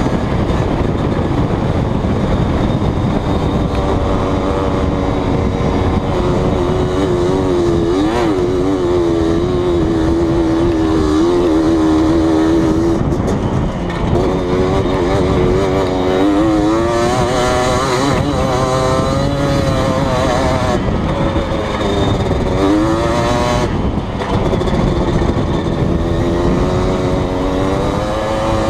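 Yamaha Blaster ATV's single-cylinder two-stroke engine running while being ridden, its pitch rising and falling again and again with the throttle, over a constant rushing noise.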